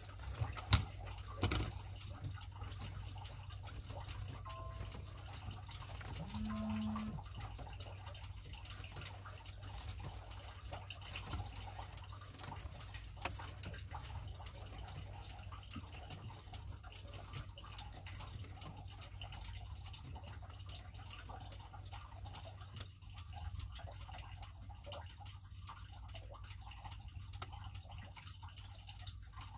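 Faint water dripping and lapping around a small wooden boat at sea, over a steady low hum, with a couple of light knocks in the first seconds.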